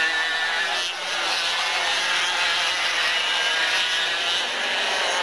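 Two-stroke Parilla kart engines at high revs as a pair of karts race past together, several engine notes overlapping in a steady buzzing whine.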